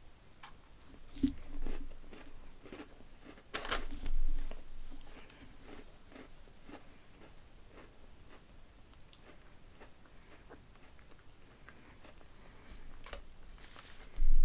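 Close-up eating sounds of a Keebler Pumpkin Spice Fudge Stripes cookie, a crunchy shortbread cookie with fudge stripes. Two louder bites crunch in the first few seconds, then steady chewing follows with many small crunches.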